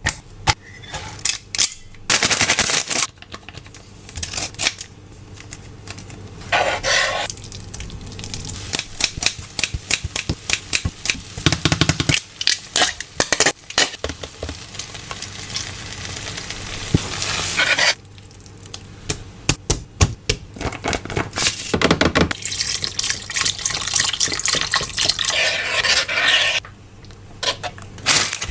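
Kitchen cooking sounds while instant noodles are being made: utensils clicking and knocking against pans and dishes, stirring, and several hissing stretches of sizzling.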